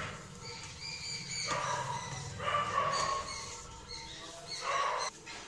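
A dog whining and yelping in about four drawn-out, pitched calls, each under a second or so long.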